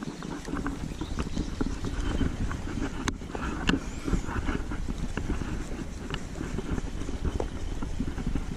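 Wind buffeting the microphone over small waves lapping at the lakeshore, a steady low rushing with scattered small clicks and a couple of sharp ticks about three seconds in.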